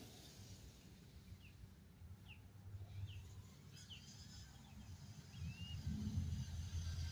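A bird gives about five short, separate chirps over faint outdoor background noise. From about five and a half seconds in, a low hum grows louder as the X-Maxx RC monster truck's electric drive comes back up the trail.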